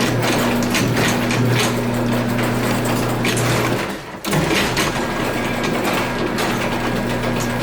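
Chamberlain 41A5483-4B garage door opener's motor running steadily as the remote works it in a test, with a short break a little over four seconds in before it runs on again.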